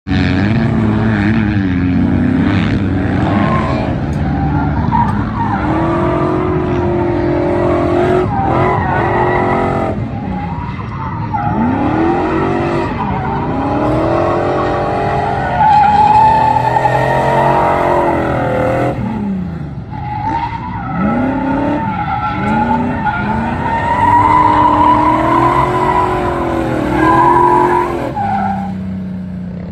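Nissan VH45 4.5-litre V8 in an S13 coupe drifting: the engine revs hard and falls off again over and over while the rear tyres squeal, and it settles to a steadier, lower note near the end.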